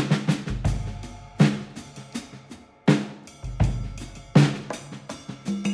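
Drum-led music: a beat of sharp drum and cymbal hits, with a deep bass boom under some of them.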